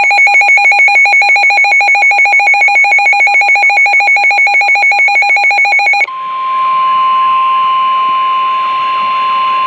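Weather radio alert alarm: for about six seconds a loud electronic alarm of several high tones beeps in a rapid, even pulse. It then gives way to a single steady tone of about 1050 Hz, the NOAA Weather Radio warning alarm tone that comes before a warning message.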